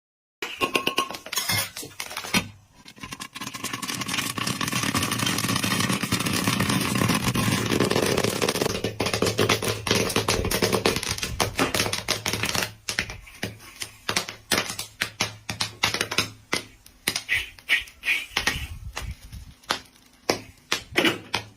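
Popcorn kernels popping: a few pops at first, then a dense rapid crackle of popping over a low steady hum through the middle, thinning to scattered single pops near the end as the batch finishes.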